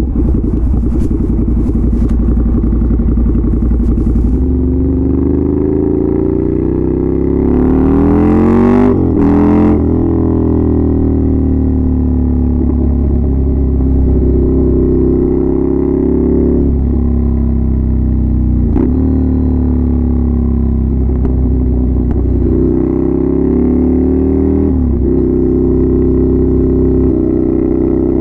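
Ducati Scrambler's air-cooled L-twin running through a loud aftermarket exhaust while the bike is ridden hard. The engine note climbs, drops briefly at each gear change, and climbs again several times.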